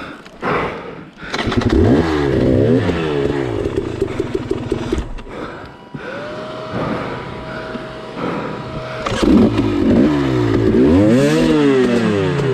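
Dirt bike engine revved hard in two bursts, about a second in and again about nine seconds in, the pitch swinging up and down as the throttle is worked, with the engine ticking over more quietly in between.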